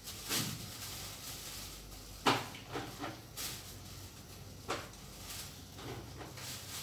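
Kitchen handling noises at a sink: a few short, sharp knocks and clatters of utensils and dishes, spaced a second or two apart, the loudest about two seconds in.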